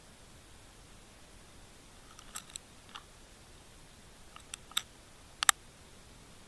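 Sharp underwater clicks and knocks over a faint hiss, as a fish takes live bait on a rig right beside the camera. There are a few clicks about two seconds in, then a quicker run of them near the end, the last a loud sharp crack.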